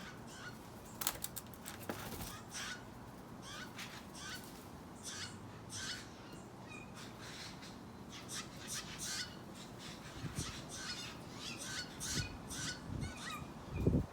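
Steller's jay fledgling calling: a string of short, raspy calls, about one or two a second. There is a louder low thump near the end.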